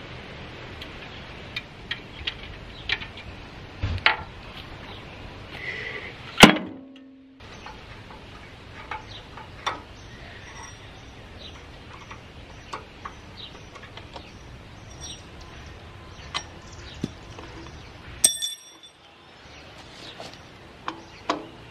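Hand tools and loose metal parts clicking and tapping on the sheet-metal frame of a panoramic X-ray machine being taken apart. There is a loud clang with a short ring about six seconds in, and a bright metallic ding near the end.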